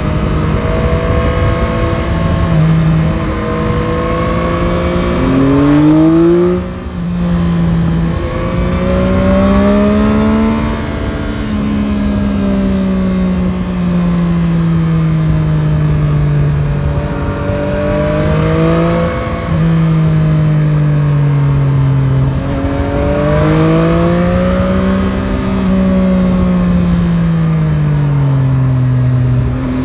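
Yamaha Tracer 9 GT's 890 cc CP3 inline-three engine pulling on the road, its pitch rising and falling as the throttle is opened and eased off. About six seconds in the revs climb sharply, then drop with a brief dip in loudness, like a gear change, and there are shorter breaks in the revs a few more times.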